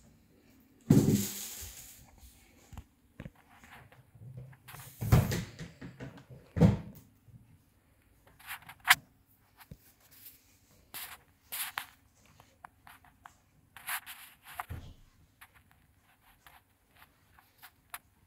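Irregular rubbing and scraping noises with scuffs and clicks. The loudest come about a second in and again around five and nearly seven seconds in, with shorter, fainter ones after.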